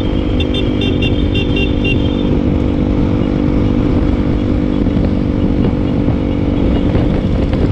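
Motorcycle engine running steadily at an even road speed, with wind and road rumble on the microphone. A quick run of short high-pitched notes sounds over it during the first two seconds.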